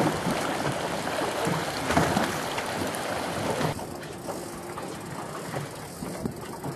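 Steady rush of wind and water around a fishing boat trolling at sea, with the boat's motor running underneath. The hiss eases off about halfway through.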